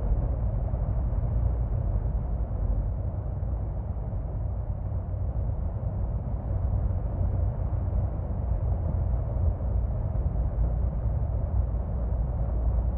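Steady low rumble of stream water flowing, with no distinct events.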